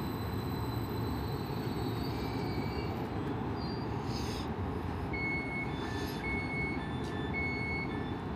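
Westbahn Stadler KISS double-deck electric multiple unit pulling slowly into the platform and coming to a stop, with a steady low rumble. About four seconds in there is a brief hiss, followed by three evenly spaced electronic beeps.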